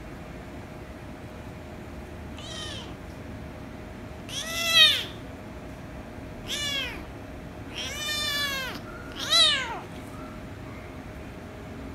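Young kitten meowing: five high-pitched meows spread over about seven seconds, each falling in pitch at the end. The second and last are the loudest, and the fourth is drawn out the longest.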